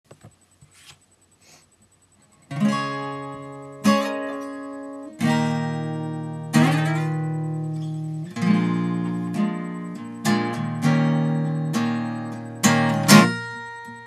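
Acoustic guitar: a couple of seconds of faint handling clicks, then single chords strummed about once a second and left to ring out, moving through different chords.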